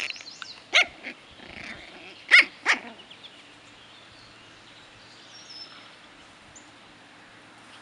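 Six-week-old shichon puppies yipping as they play-fight, with three short, high-pitched yips standing out in the first three seconds.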